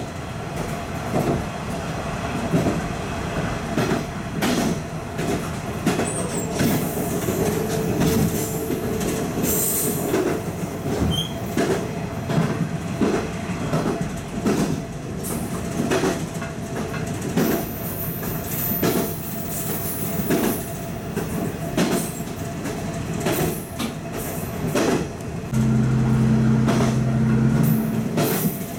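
KiHa 185 diesel railcar running on the line, heard from the cab, its wheels knocking over rail joints about once a second, with brief high wheel squeal now and then on curves. Near the end a loud, steady low tone sounds for about two seconds.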